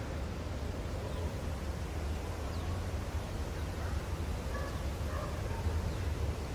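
Wind rumbling on the microphone, with a few faint bird chirps.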